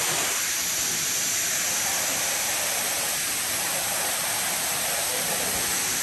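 Waterfall rushing steadily: the even roar of falling water striking rock.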